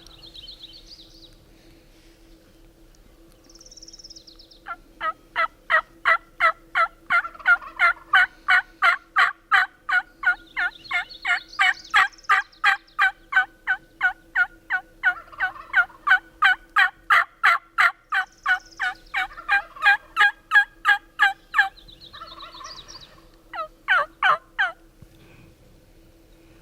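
Turkey yelping: a long, even run of sharp notes, about three a second, for some seventeen seconds, then after a short break a quick burst of a few more notes near the end. Faint higher songbird chirps come through now and then.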